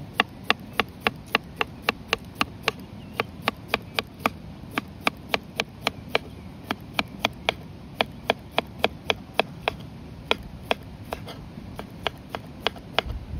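Kitchen knife slicing a cucumber into strips on a wooden cutting board, the blade knocking the board in a quick, even rhythm of about three or four cuts a second.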